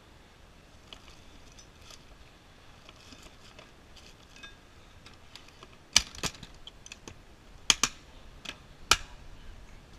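An orange Pelican hard plastic case being packed and shut: faint rustling and small knocks as gear is pushed into place, then a run of about five sharp, loud plastic clicks over about three seconds as the lid comes down and the latches snap closed.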